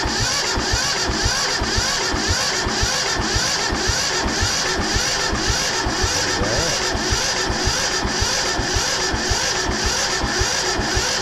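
Yanmar 1500 tractor's diesel engine turning over on its electric starter, a steady rhythmic cranking that does not catch, while fuel is pumped to the loosened injector lines to bleed air from the fuel system.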